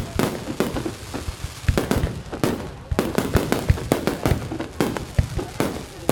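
Aerial fireworks going off: irregular sharp bangs, at times several a second, over a continuous low rumble from distant bursts.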